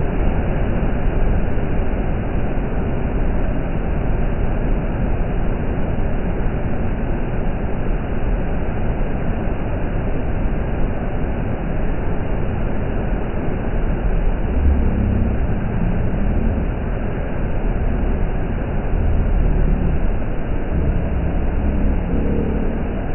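Steady loud rush of water from a waterfall and mountain stream in a narrow gorge, with some heavier low rumbles now and then in the second half.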